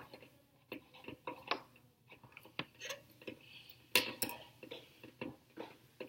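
Faint, irregular ticks and pops, about two or three a second, from glass beakers of water heating on electric coil hot plates. The water is at about 55 °C and not yet boiling.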